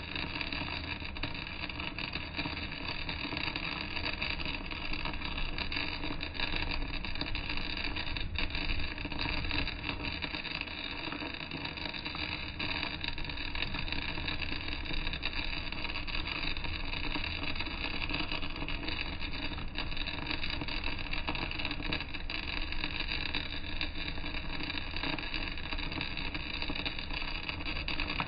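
Electric welding arc burning steadily on a vertical-down (3G downhill) weld on steel plate, a continuous crackling hiss with no break.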